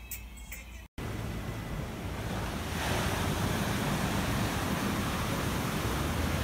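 Ocean waves washing onto a beach, with wind rumbling on the microphone. The surf swells louder about three seconds in. A second of music comes before it and breaks off abruptly.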